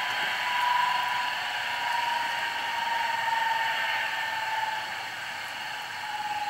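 HO-scale model locomotive's LokSound sound decoder playing a simulated twin Alco 539 diesel shutdown through its small onboard speaker. A steady engine hum runs with a thin whine that slowly falls in pitch as the engines wind down.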